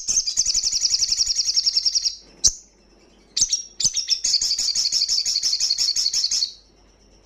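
Male olive-backed sunbird (sogon) singing loudly: two rapid, high trills of about two seconds each, with a few single sharp chirps in the gap between them.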